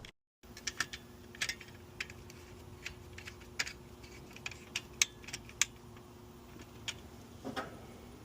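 Irregular light clicks and taps of small metal parts and tools being handled, about two to three a second, over a faint steady hum that stops a little after six seconds in.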